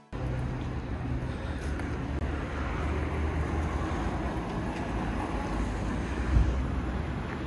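City street ambience: a steady low rumble of traffic with wind buffeting the microphone, and a brief bump about six seconds in.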